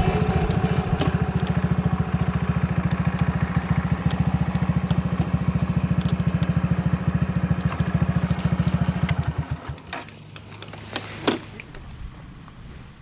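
Honda Grom's 125 cc air-cooled single-cylinder four-stroke engine idling with an even rapid putter, then switched off about nine and a half seconds in, the beats slowing and dying away. A short sharp sound follows about two seconds later.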